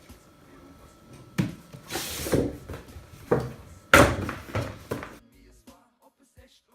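DJI Mavic Pro product box being handled and opened: a knock, a sliding rustle as the lid comes away, then a sharper knock about four seconds in, with quiet after about five seconds.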